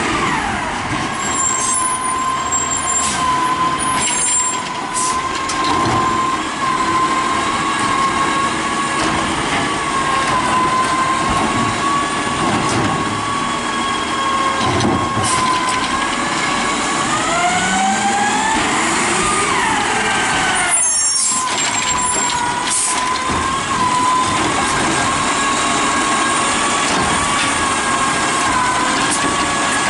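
Automated side-loading garbage truck, a 2010 DaDee Scorpion, running with a steady high whine, with a few short air-brake hisses. About 17 to 20 seconds in, its engine revs up, rising in pitch.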